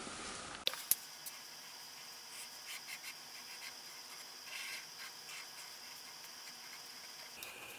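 Pen scratching faintly on paper in short strokes while drawing, over a steady hiss with a thin high tone. Two clicks come about a second in.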